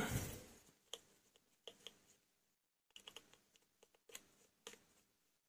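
Faint, scattered clicks of a small screwdriver working the screws that hold an LED bulb's LED board (MCPCB) in its metal housing, about half a dozen light ticks spread over a few seconds.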